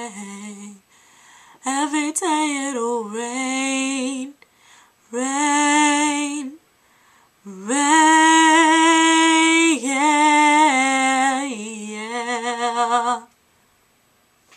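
A woman singing a slow ballad line unaccompanied, in several phrases of held notes that waver with vibrato, with short silent gaps between them. The last phrase ends about 13 seconds in.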